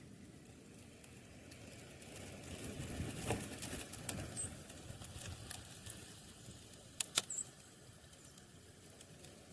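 A vehicle passing, swelling and fading over a few seconds, with scattered sharp ticks, the loudest two close together about seven seconds in, and a couple of faint, very short high chirps.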